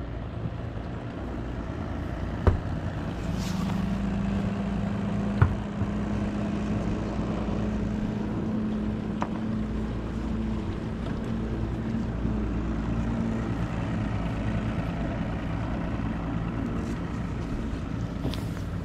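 Boat motor running steadily under wind noise, with a low hum that strengthens a few seconds in and fades about two-thirds of the way through. Two sharp knocks, one a couple of seconds in and one near the six-second mark.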